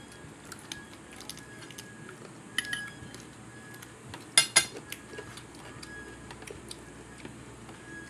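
Cutlery clinking against a plate during a meal: scattered light clicks and taps, with two sharp ringing clinks in quick succession about four and a half seconds in.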